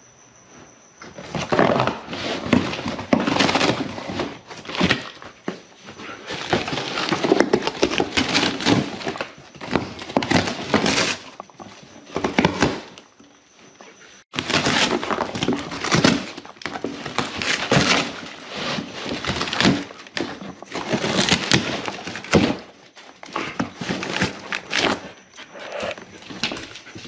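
A German shepherd tearing and clawing at a large cardboard box: cardboard ripping, crumpling and scraping in long loud runs broken by short pauses.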